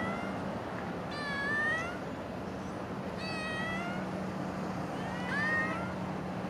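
Stray brown tabby cat meowing three times, about every two seconds, each meow a short call that bends up and down in pitch.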